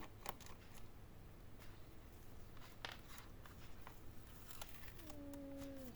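Faint, scattered clicks and taps of small tools and screws while screws are taken out of a laptop's bottom case, with a brief low hum of a voice near the end.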